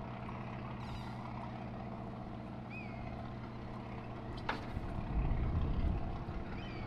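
An engine running steadily with a low, even hum, growing louder and rumbling after about five seconds, with a short high chirp about three seconds in and a single sharp click.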